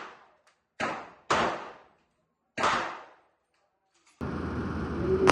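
Three handgun shots fired at an indoor shooting range, the first two about half a second apart and the third over a second later, each ringing off briefly. About four seconds in a steady background noise sets in.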